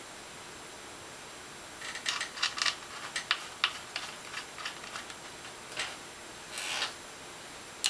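Light, irregular metallic clicks and taps of small screws and parts being handled and fitted into a camera and filter-wheel housing, starting about two seconds in, with a short scrape near the end.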